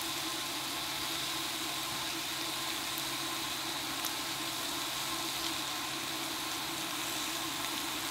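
Steady sizzle of beef and jalapeños cooking on the grill dome of an electric hot pot-and-grill, with a low hum under it and a couple of faint ticks.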